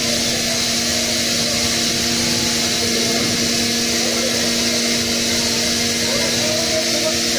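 Heavy tunnelling machinery running with a steady drone: a constant low hum under an even hiss.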